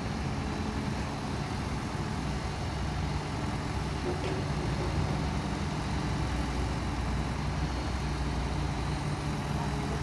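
Backhoe loader's diesel engine running steadily with an even low hum while the rear boom and bucket dig.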